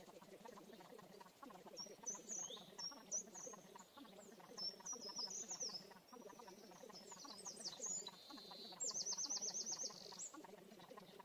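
Birdsong: a small bird sings phrases of short, high chirps and quick sweeps, ending in a fast trill of about eight even notes around nine seconds in. Under it runs a steady, low, busy background chorus.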